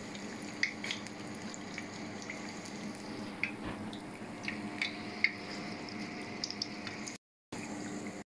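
Battered cauliflower nuggets sizzling in a shallow pan of hot frying oil, with scattered small pops and crackles. The sound cuts out briefly about seven seconds in.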